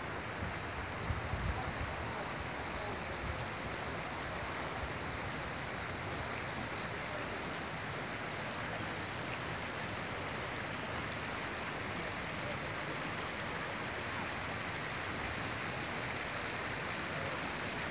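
Steady, even rushing noise of outdoor seafront ambience, with a few low thumps in the first two seconds.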